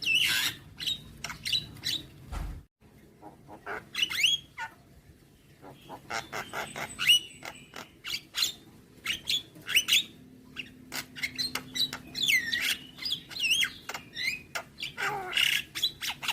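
Javan myna (jalak kebo) singing a varied song full of mimicked phrases: rapid chirps, rising and falling whistles and harsh notes, with a brief break about three seconds in.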